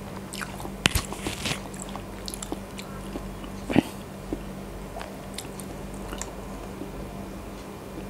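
Mouth sounds of someone chewing a soft Thai dessert close to the microphone: scattered wet clicks and smacks, loudest about a second in and again near four seconds, over a faint steady hum.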